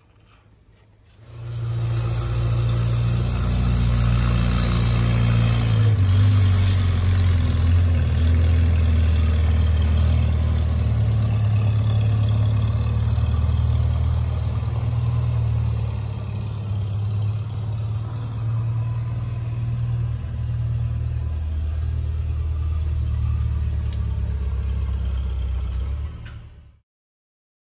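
A motor-vehicle engine running steadily close by, heard from inside a pickup truck's cab, its pitch shifting slightly now and then. It comes in abruptly about a second in and cuts off sharply near the end.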